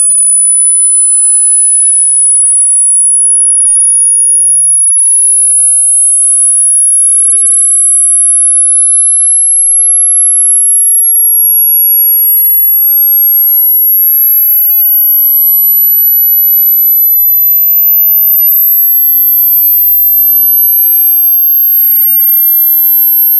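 Loud, very high-pitched pure electronic sine tone that creeps slowly upward in pitch in small steps, then cuts off at the very end.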